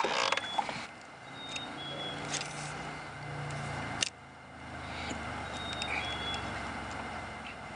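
Spinning reel being cranked to retrieve line: a steady whir in two stretches of about three seconds each, split by a sharp click about four seconds in. A short clatter at the start.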